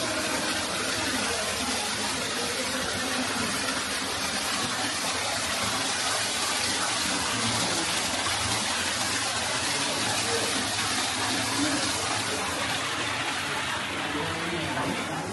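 Steady rush of running water, an even hiss with no breaks, like a waterfall or water feature.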